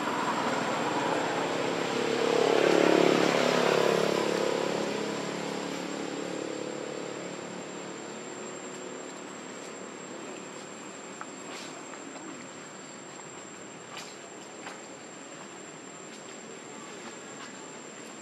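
A motor vehicle passing by, its engine noise swelling to its loudest about three seconds in and fading away over the next few seconds. Afterwards a quieter outdoor background with a steady high thin tone and a few small ticks and rustles.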